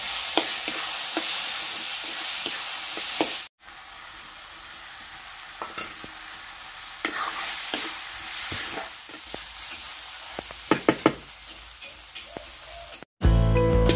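Snail meat frying in a metal kadai: a steady sizzle, with a metal spoon stirring and clicking against the pan. The sizzle is loudest for the first few seconds, then breaks off and comes back quieter, with clusters of spoon clicks. It cuts off just before the end.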